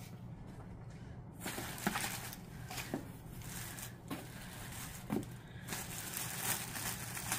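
Rustling and crinkling of clothing and its packaging as garments are handled and pulled out of a cardboard box. The rustling starts about a second and a half in, has a few soft knocks and a short lull, and sits over a faint steady hum.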